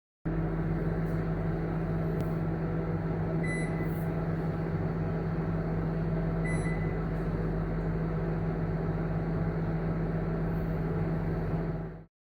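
Homelux HMO-SM25L commercial microwave oven running with a steady low hum. Two short beeps about three seconds apart sound over it. The hum stops near the end.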